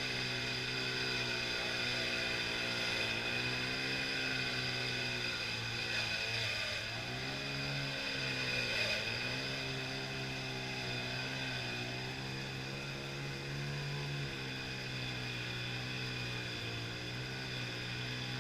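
An engine running steadily at a constant low speed, its note dipping briefly a few times.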